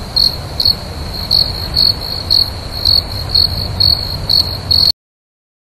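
Insects trilling steadily at one high pitch, with louder pulses about twice a second, over a low rumble. The sound cuts off suddenly near the end.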